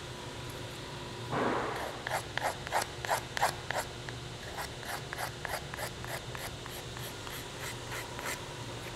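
Small hand file rasping across the edge of a walnut axe-handle wedge in quick strokes, about four a second with a short break in the middle, rounding off the wedge's corners. A single longer scrape comes just before the filing starts.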